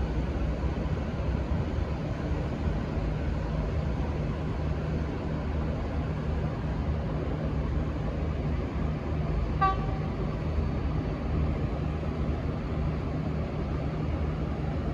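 V/Line N class diesel-electric locomotive's EMD 12-645 engine running steadily with a low rumble. About two-thirds of the way in, one short horn toot.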